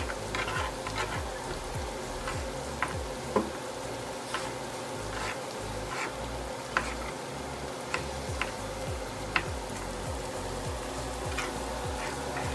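Kitchen knife slicing tomatoes on a plastic cutting board: a sharp click each time the blade strikes the board, irregular, roughly once a second, over a steady background hum.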